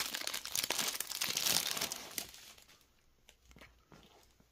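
Foil trading-card pack crinkling as it is opened and the cards are pulled out, for about two seconds; after that only faint handling of the cards.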